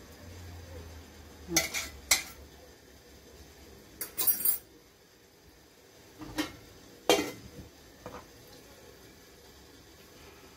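About half a dozen sharp metal clinks and knocks, spread apart: a fork against a stainless steel couscoussier steamer basket and its steel lid. The vermicelli is being fluffed between steamings and the steamer is being covered.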